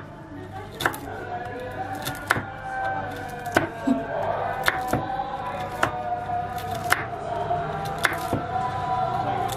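Kitchen knife chopping walnuts on a wooden cutting board: sharp knocks of the blade on the board, roughly one a second, over background music.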